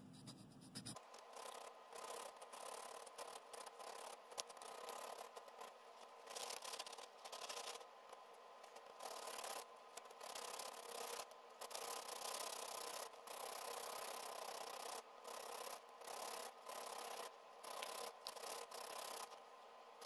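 600-grit wet sandpaper rubbed by hand around the copper contact ring of a clutch safety switch's plastic pin, in short uneven strokes with brief pauses, starting about a second in. The sanding takes residue and worn dark spots off the contact ring so the switch makes contact again.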